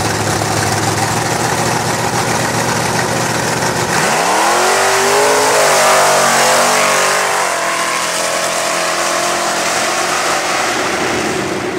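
Pickup truck engine idling at the line, then revving hard about four seconds in as the truck launches down a sand drag strip. Its pitch climbs and holds loud for a few seconds, then eases off as the truck runs away.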